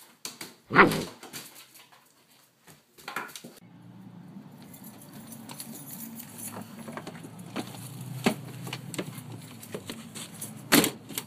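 A dog barks loudly about a second in and once more, fainter, about three seconds in. Near the end a car door thumps shut.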